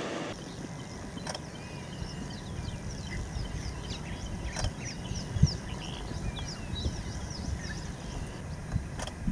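Birds chirping steadily in short, falling notes, several a second, over a low rumble, with a single low thump about five seconds in.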